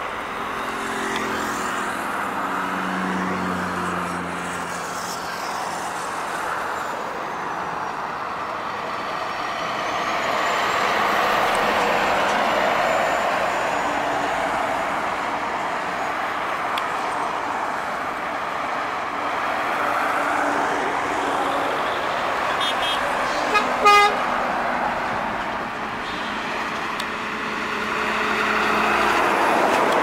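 Heavy trucks driving past on a highway: diesel engine and tyre noise that swells as each one goes by. A short double horn toot sounds about three-quarters of the way through.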